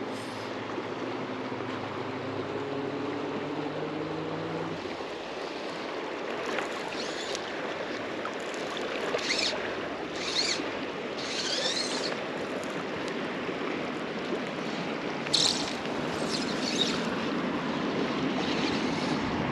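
River water flowing and rushing steadily. A low hum underneath stops suddenly about five seconds in, and several short, higher-pitched sounds come and go through the middle.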